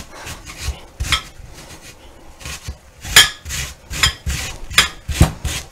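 Yukon gold potato being grated by hand on a stainless steel box grater: a run of quick rasping strokes, roughly two a second and uneven, the loudest about three seconds in.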